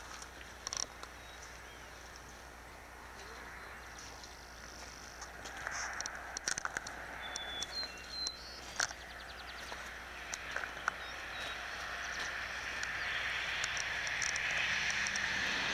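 Outdoor ambience: a few faint high bird chirps around the middle, scattered light clicks, and a rushing noise that grows steadily louder over the last several seconds.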